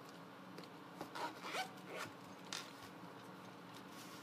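Lock pick case being handled and opened: a few short, faint rasping slides and rubs, about one to two and a half seconds in.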